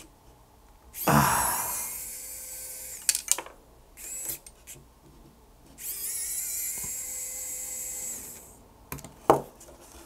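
Electric precision screwdriver with a 1.5 mm bit running in two spells of about two seconds each, about a second in and again about six seconds in, with a steady high whine as it backs out the screws of a drone propeller. Small clicks of handling come between the runs and near the end.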